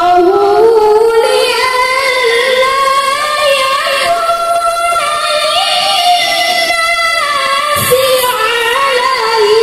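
A woman singing a sholawat solo, holding long ornamented notes that glide slowly in pitch. Near the end a single drum stroke sounds under the voice.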